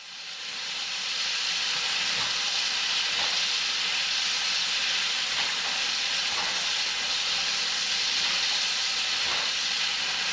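Steady loud hiss of steam escaping from the cylinder drain cocks of BR Standard Class 7 Pacific No. 70000 Britannia, a steam locomotive standing at the platform; the hiss fades in over the first second.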